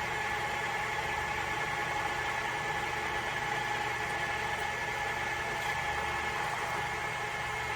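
Cincinnati No. 2 horizontal milling machine running under power, a steady mechanical hum with an even, high gear whine.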